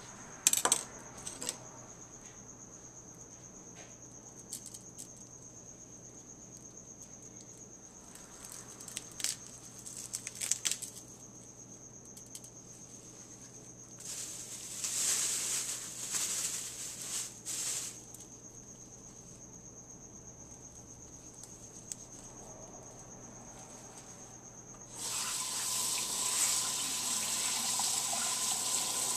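Kitchen work sounds: sharp clinks of a knife against a stone mortar near the start and again around ten seconds in, and a plastic produce bag of cilantro crinkling for a few seconds in the middle. Near the end comes a steady rush of water running from a tap.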